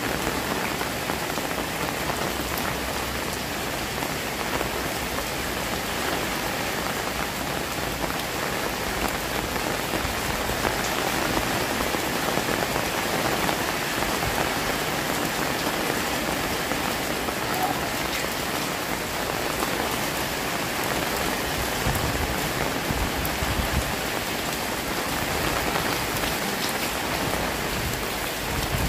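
Heavy rain falling steadily onto a flooded alley, a dense, even hiss of drops splashing into standing water.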